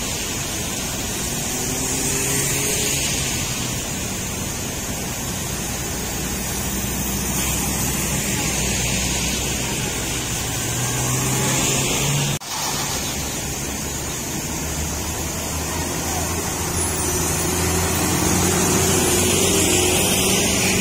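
Vehicle engines running steadily as cars pass slowly around a stuck truck, over a steady hiss. The sound drops out for a moment about twelve seconds in.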